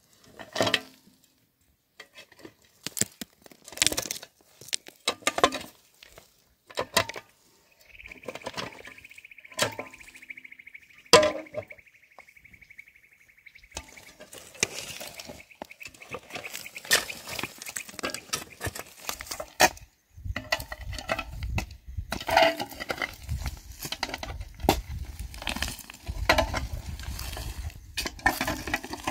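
Irregular knocks and clinks of hard objects being handled. A steady high tone runs for several seconds in the middle, and a low rumble comes in during the last third.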